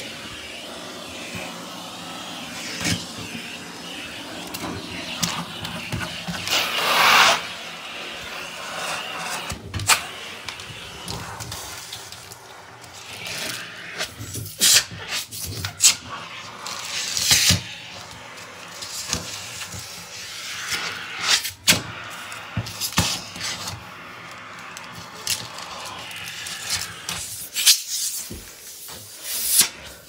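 AirVac central vacuum running: a steady rush of suction air through the hose, with frequent clicks and rattles of debris being sucked up and a louder surge about seven seconds in.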